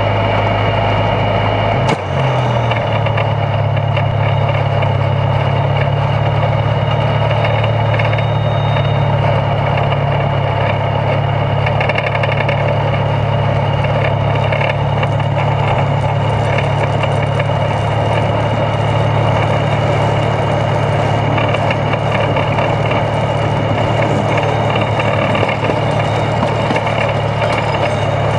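Internal combustion engine and drivetrain of a two-foot gauge geared locomotive running under way, heard from beneath the frame beside the driveshaft. The engine note steps up about two seconds in, then holds steady.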